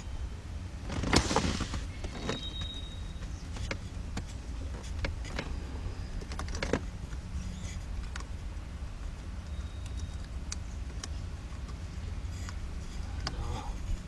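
Small clicks and taps of a plastic steering-column piece being worked by hand onto the steering shaft, with a brief louder rustle about a second in, over a steady low rumble.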